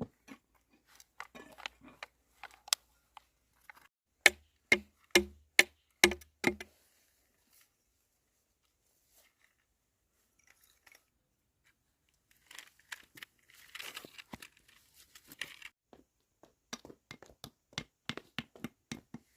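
Six sharp knocks in quick succession, about half a second apart, a few seconds in; later a stretch of rustling and crinkling with scattered small clicks.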